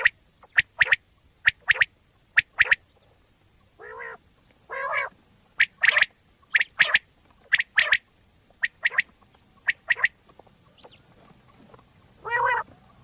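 Common quail calling: quick, sharp notes, mostly in twos or threes, repeated about once a second, with three longer, lower-pitched calls about four, five and twelve seconds in.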